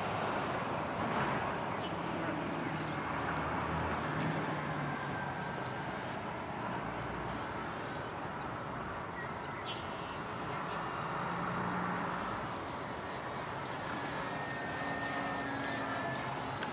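Electric motor and propeller of an E-Flite Mini Ultra Stick RC plane buzzing faintly as it flies overhead, its pitch wandering with throttle and distance, over a steady hiss.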